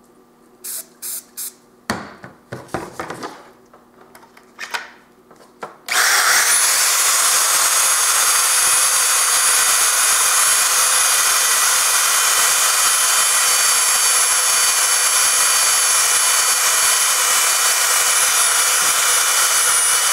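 A few short hisses of threading oil sprayed from an aerosol can, with some handling knocks. About six seconds in, a REMS Amigo portable electric pipe threader starts and runs steadily with a high motor whine as its die head cuts a thread on steel pipe.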